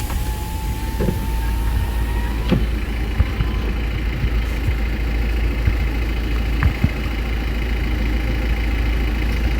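Car engine running steadily with a deep low rumble, with a few faint clicks.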